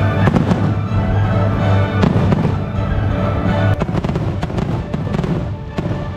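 Fireworks display: many firework bursts popping in quick irregular succession over loud show music.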